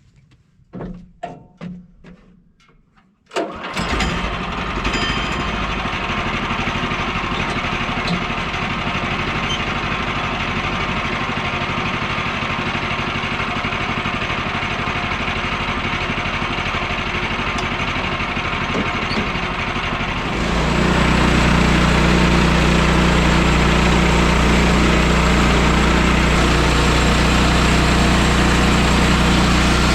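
An engine is cranked with several short strokes, catches about three seconds in and settles into steady running. About twenty seconds in it gets louder, with a heavier, deeper note.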